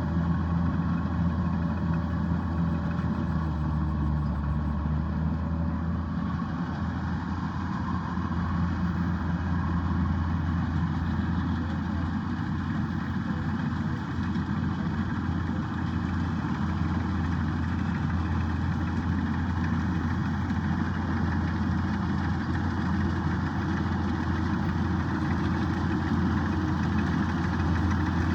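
Kubota DC-105X combine harvester running steadily, its engine's low hum and the machine's steady noise holding an even level throughout.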